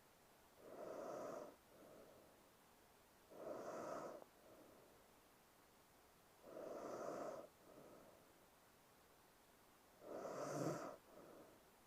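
A young woman snoring softly in her sleep: four slow snoring breaths about three seconds apart, each followed by a shorter, softer breath.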